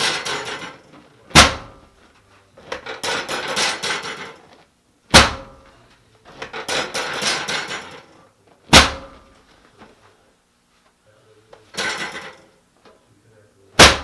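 Chiropractic drop table's pelvic section dropping under adjustment thrusts: four sharp, loud clacks a few seconds apart, with rustling and rubbing of clothing and the vinyl cushion as the leg is repositioned between them.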